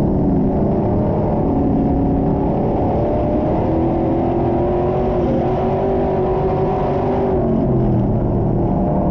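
IMCA Stock Car's V8 engine at racing speed, heard from inside the cockpit: the engine note rises and falls as the throttle comes on and off through the turns. It sounds low and muffled, with little treble.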